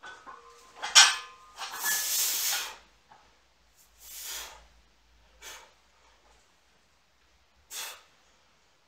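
Iron barbell plates clank and ring as a loaded barbell is pulled off the floor and cleaned to the shoulders. Then come forceful breaths from the lifter as the bar goes overhead: one long hard exhale, then three shorter ones.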